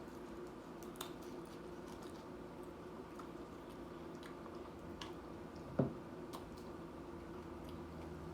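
Quiet chewing of nachos with a few faint clicks, over a low steady hum; a short pitched sound, like a brief 'mm', comes near the end.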